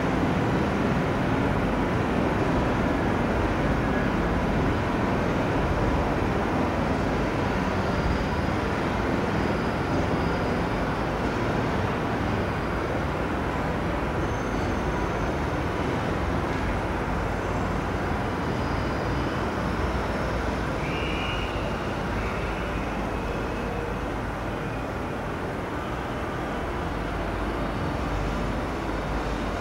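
Passenger coaches of a departing locomotive-hauled train rolling out over the station tracks, a steady rumble that slowly fades as the train draws away, with a brief high squeal about two-thirds of the way through.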